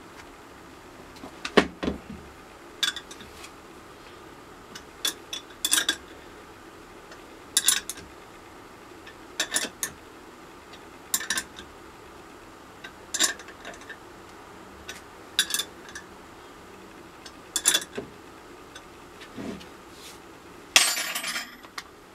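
Short metallic clinks in small clusters about every two seconds, a spanner being worked on the bolts of a homemade leather embossing press, with a longer metallic rattle near the end.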